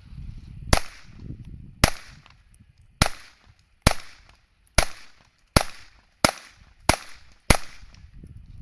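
CZ P-07 pistol in .22 LR fired nine times in steady succession, the shots a little under a second apart, each a short sharp crack.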